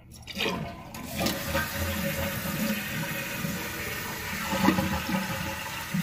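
Toilet flushing with its tank lid off: a steady rush of water that starts about a second in as the tank drains and the newly replaced fill valve refills it. The flush works properly.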